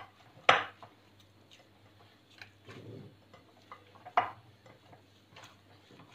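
Hands mixing soft bread dough in a glass bowl, the bowl giving two sharp clicks, about half a second in and again about four seconds in, with fainter ticks and a soft squish of the dough between.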